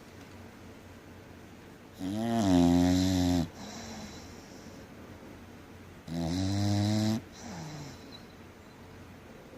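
English Bulldog snoring hard: two long, loud snores about four seconds apart, each followed by a softer breath.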